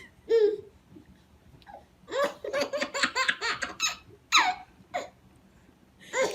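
A person laughing in bursts, with a quick run of rapid ha-ha pulses in the middle and shorter laughs before and after.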